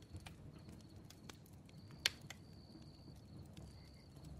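Faint campfire crackling: scattered sharp pops and snaps, the loudest about two seconds in, over a low steady rumble, with a faint high steady tone coming and going.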